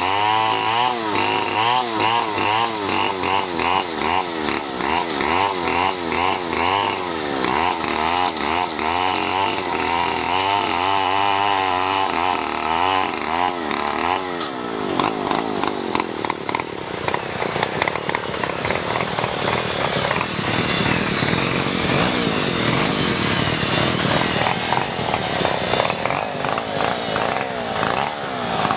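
A power tool working wood runs loudly throughout. For the first half its motor pitch wavers up and down in a quick, regular wobble; about halfway through it changes to a rougher, noisier cutting sound.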